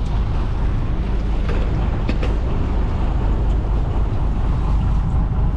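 Steady low rumble of wind on the microphone and sea noise aboard a small fishing boat, with a few light clicks about two seconds in.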